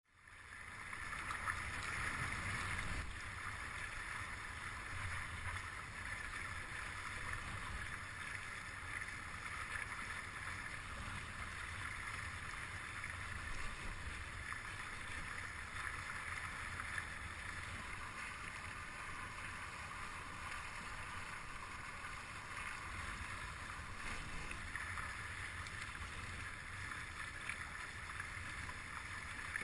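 Water rushing and hissing past the hulls of a Stunt S9 catamaran under sail, over a low rumble of wind on the boat-mounted microphone. The sound fades in over the first second and then holds steady.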